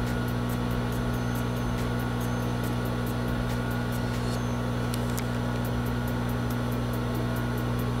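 Microwave oven running on heat: a steady low electrical hum with fan noise, and faint even ticks about four a second.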